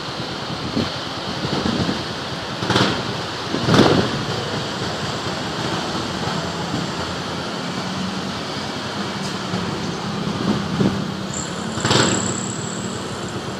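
Steady city road traffic of cars, pickups and motorbikes passing below, with louder vehicle passes about three and four seconds in and again near the end. A thin, high, steady tone sounds for about two seconds near the end.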